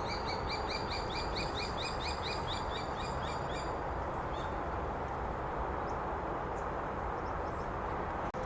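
Common kestrel giving a rapid series of shrill kee-kee calls, about four or five a second, that stops about four seconds in. A steady background rumble and hiss runs underneath.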